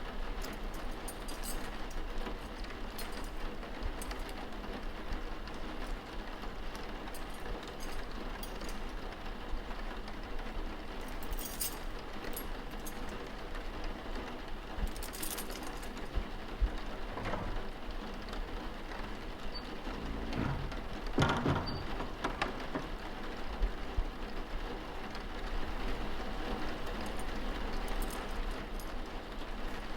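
Steady rain, with a few brief knocks and rustles of library noises laid over it. The loudest of these comes about two-thirds of the way through.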